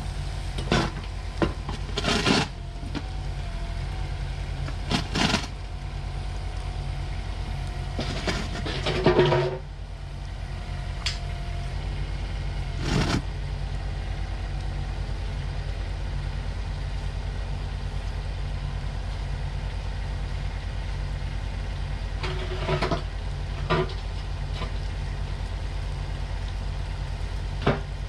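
Kubota U10 mini excavator's diesel engine running steadily at idle, with about nine short clanks and scrapes of metal as the bucket and machine shift on the loading ramps. The loudest comes about nine seconds in.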